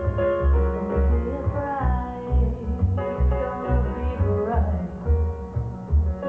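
Music played back from tape on a TEAC A-3300SX reel-to-reel deck and heard through loudspeakers: a song with a steady pulsing bass beat under sung and plucked melody lines.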